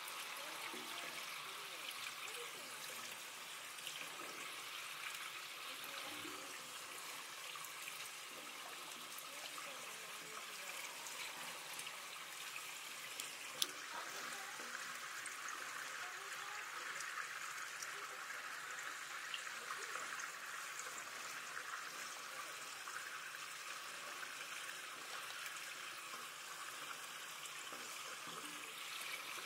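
Steady running, trickling water, with one sharp click near the middle.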